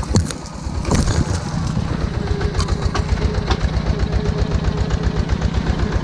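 Tractor engine chugging steadily as it pulls a loaded passenger trailer over a rough dirt track, its low rhythmic beat growing stronger about a second in. A few sharp knocks cut through it, near the start and again around the middle.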